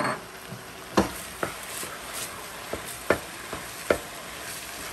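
Wooden spatula stirring ground chicken and diced bell peppers in a frying pan, with a steady sizzle and several sharp knocks of the spatula against the pan.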